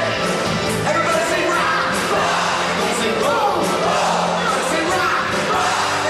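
Live rock band playing, with drums, guitars and congas, while a male singer sings into a microphone over the steady beat.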